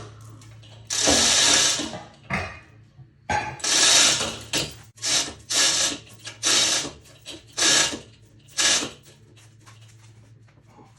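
A ratchet wrench clicking in about eight short bursts as bolts are worked loose, over a steady low hum, going quieter for the last couple of seconds.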